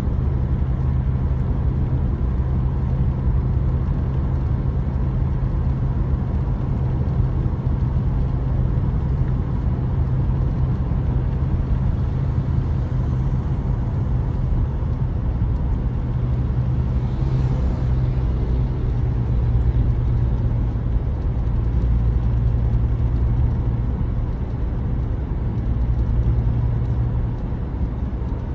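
Steady low engine and tyre rumble heard inside a moving car's cabin at cruising speed, with a brief swell of hiss about two-thirds of the way through.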